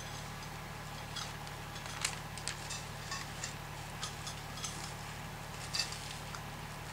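Scattered light metal clicks and clinks as mini greenhouse frame tubes and wire shelves are handled and fitted together.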